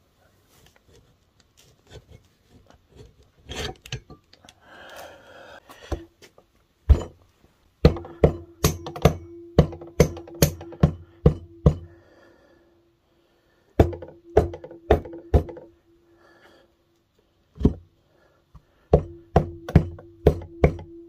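Rubber mallet tapping the halves of a Polaris 700 jet-ski engine's crankcase together over the crankshaft to seat them on fresh sealant. Sharp knocks come in quick runs of two or three a second, starting about six seconds in, with two pauses between the runs.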